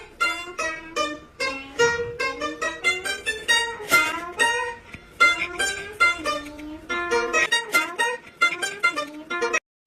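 Background music: a fast run of plucked string notes, guitar- or mandolin-like, with some bending pitches.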